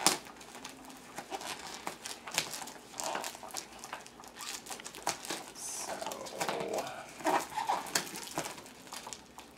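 Thick parcel wrapping and packing tape being crinkled and torn by hand as a package is unwrapped, with irregular crackles and rustles, louder in clusters about three seconds in and again near the end.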